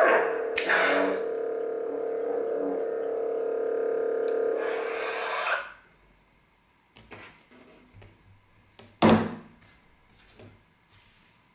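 Lightsaber sound board's steady electric hum with a couple of louder swing sounds, ending in the blade-retract sound about five and a half seconds in. Then light clicks and taps of the metal hilt being handled, with one sharper knock about nine seconds in.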